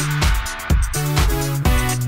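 Background electronic dance music with a steady beat under sustained synth notes.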